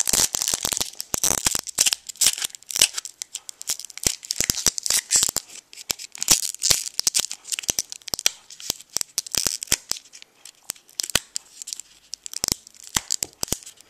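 Foil wrapper of a Pokémon TCG Platinum Arceus booster pack crinkling and tearing as it is peeled open slowly by hand, a long run of irregular crackles and small rips. It is being opened carefully to keep the wrapper whole, though it ends up torn a little.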